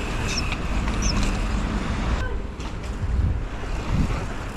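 Wind rushing over the microphone and tyre rumble from a mountain bike rolling over paving, with road traffic behind, and a couple of low bumps in the second half.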